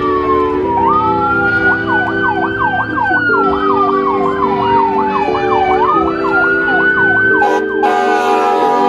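Emergency vehicle siren alternating between a slow rising-and-falling wail and a fast yelp, over several vehicle horns honking in long held blasts.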